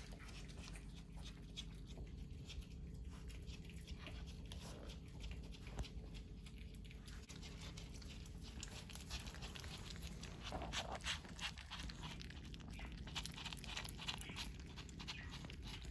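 Pomeranian crunching and nibbling the shell off a hard-boiled egg: a run of small crackling clicks, busier in the second half.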